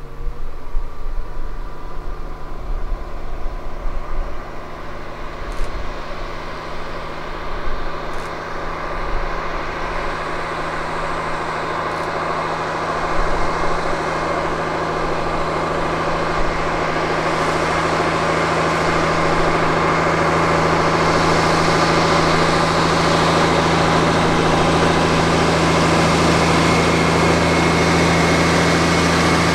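A bus engine running at a steady note and growing steadily louder as the bus draws near.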